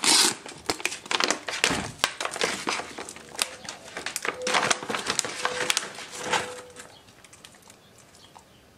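Plastic treat pouch being opened and handled: crinkling and crackling of the packaging as a jerky stick is pulled out, dying down about seven seconds in.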